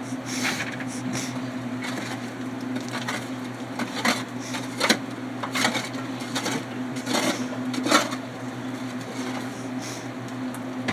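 Irregular scrapes and knocks of digging in packed clay, roughly one a second, over a steady low hum.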